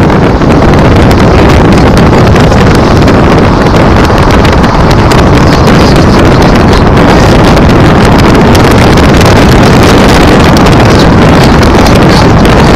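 Heavy wind buffeting the camera microphone from a moving car, a loud, steady rushing roar with constant flutter that drowns out the engine and road noise.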